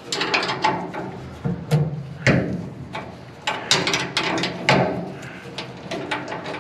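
Hand ratchet clicking in short back-and-forth strokes while loosening a 9/16 carriage bolt on a leaf-spring shackle, with a few louder metal clanks of the tools against the bolt and bracket.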